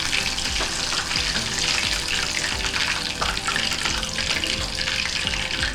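Chicken pieces deep-frying in hot oil, a steady sizzle full of small crackles.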